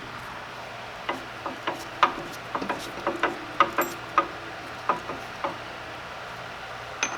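Irregular sharp clicks and light taps, about a dozen in four seconds and one more near the end, from tools and parts being worked while fitting a pin on a brake assembly.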